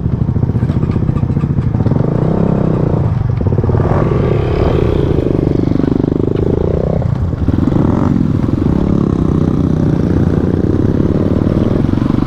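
Motorcycle engine pulling in first gear over a rough track. The revs dip and climb again around the middle, then rise about two-thirds of the way through.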